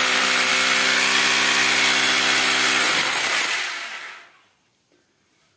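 Corded electric drill running at full speed as it bores into a painted wall, then stopping about three seconds in and winding down to silence within about a second.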